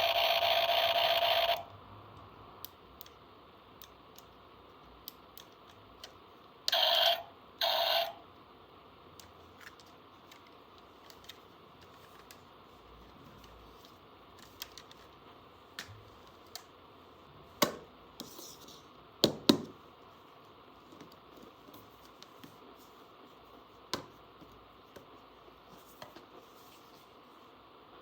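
Small plastic toy tool parts being handled, giving scattered light clicks and taps, with a few louder knocks. Two short, louder bursts come about seven seconds in, and music cuts off at the very start.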